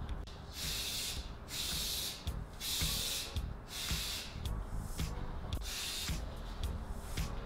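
Aerosol spray-paint can hissing in a string of short bursts, each under about a second, with brief pauses between them.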